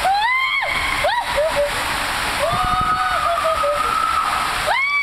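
Water rushing and splashing down a water-park tube slide during a ride, with riders' voices whooping in rising-and-falling cries several times over the steady rush.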